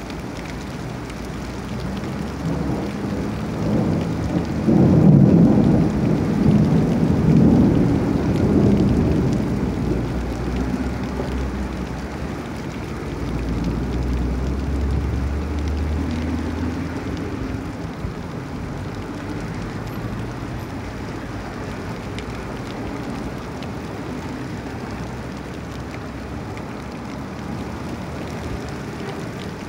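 Heavy rain falling steadily, with a long rumble of thunder that builds from about three seconds in, is loudest around five seconds and dies away by about ten seconds. A car then passes on the flooded road, its tyres swishing through the water.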